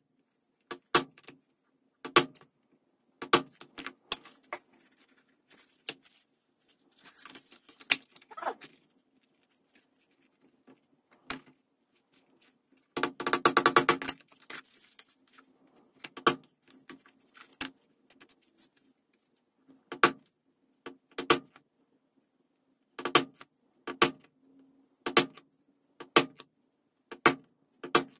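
Sharp knocks of a mallet striking a stitching punch through vegetable-tanned leather, roughly one a second, with a fast run of rapid knocks about halfway through.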